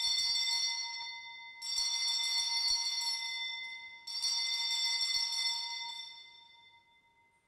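Altar bell (sanctus bell) rung three times, each stroke ringing on and fading before the next, about two and a half seconds apart; it marks the elevation of the chalice at the consecration of the Mass.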